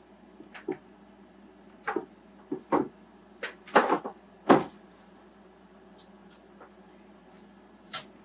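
Handling noises as vinyl decal pieces and the hard plastic RC truck body are worked on a workbench: a run of short taps, clicks and rustles in the first five seconds, with one more click near the end.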